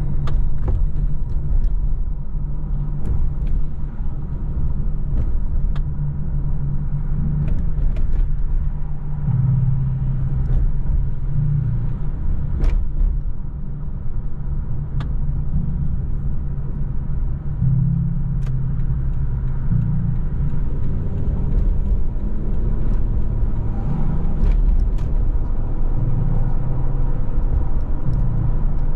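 Car driving on a wet road, heard from inside the cabin: a steady low rumble of engine and tyre noise, with scattered faint ticks.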